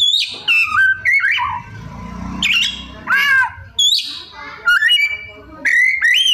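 Oriental magpie-robin (kacer) singing loudly in a rapid run of varied phrases: whistled glides that sweep up and down, arched slurred notes, quick trills and harsh squawky calls, a new phrase every half second or so. It is delivering its full song, including the calls of other birds it has learned to mimic.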